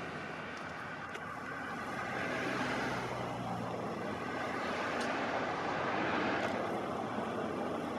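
Departing car ferry's engines and propeller wash: a steady rushing noise over a faint low hum, swelling slightly partway through.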